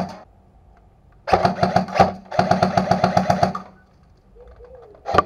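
Airsoft electric rifle firing on full auto, its motor-driven gearbox cycling at about ten shots a second. A burst trails off at the start, two bursts of about a second follow, and another begins at the very end.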